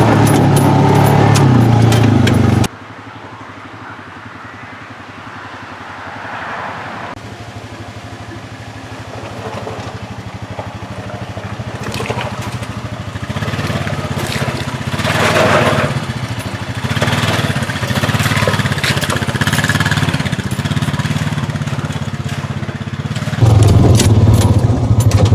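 Honda Pioneer 500 side-by-side's single-cylinder engine running steadily while driving, with wind and road noise. The sound drops suddenly about three seconds in, slowly grows louder again, and is loud once more near the end.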